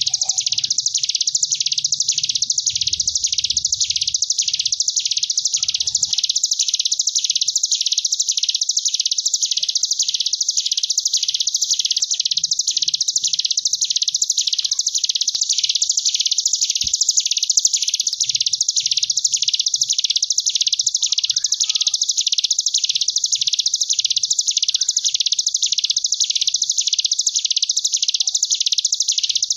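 Ciblek gunung (hill prinia) singing its 'ngebren' song: an unbroken, high buzzing trill that swells and dips in even waves about one and a half times a second.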